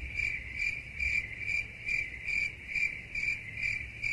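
Crickets chirping in an even rhythm, about three chirps a second, over a low rumble: the stock "crickets" sound effect of the awkward-silence gag, which cuts off suddenly near the end.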